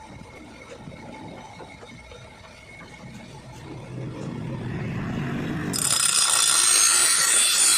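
A grass cutter's metal blade being sharpened. A low rumble builds from about halfway, then a loud, steady, high grinding of metal on metal starts suddenly about three quarters of the way in.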